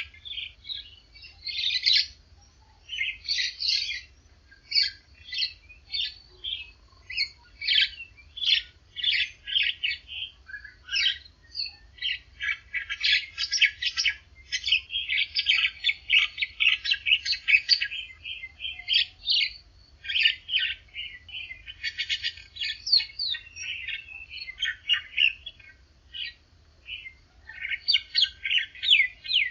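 Birds chirping and singing in quick, high, overlapping phrases with no pauses, over a faint low hum.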